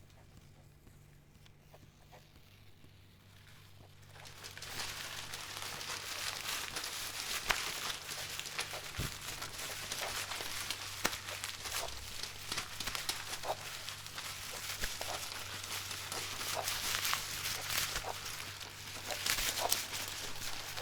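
A steady low electrical hum throughout. About four seconds in, paper starts being crumpled and rustled, a dense crackling with scattered sharper snaps that continues to the end.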